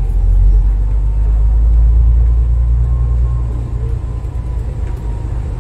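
Steady low rumble of a moving vehicle's engine and road noise with a faint thin whine, easing a little after about three and a half seconds.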